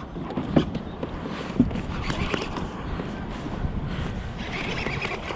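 Wind rushing over the microphone aboard a small fishing boat, with a few light knocks.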